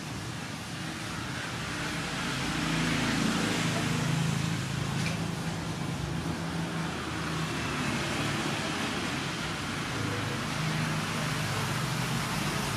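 Motor vehicle engine hum and road noise, swelling about three seconds in and again near the end.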